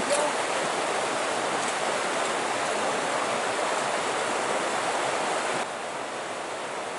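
Stream running under a footbridge: a steady rush of flowing water, which drops a little in level suddenly about five and a half seconds in.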